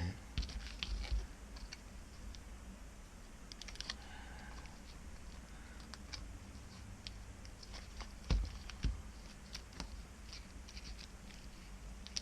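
Small hand-handling noises on an LCD panel assembly: scattered light clicks, taps and scratching, with a brief faint squeak about four seconds in.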